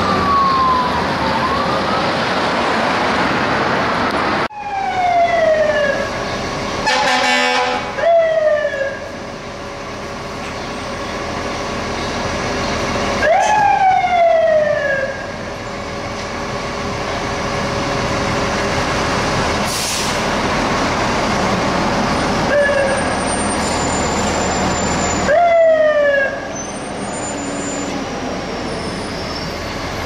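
Fire engine siren sounding in short sweeps, several times, each rising quickly and then winding down over a second or two. A blast of air horn comes about seven seconds in, over steady traffic noise.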